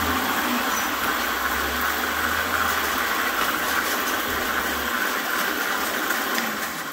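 McLane reel mower run by a 2000 W brushless DC motor, its reel blades spinning with a steady whir over a low hum. The sound fades near the end.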